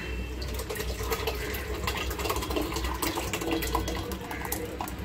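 Thick cooked dal (mashed lentils) being poured from a pressure cooker into a metal pot of cooked vegetables: a wet, slow pour with many small irregular splats.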